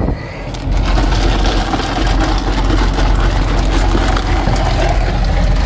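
Steady low rumble and hiss of a moving vehicle, stepping up in level just under a second in.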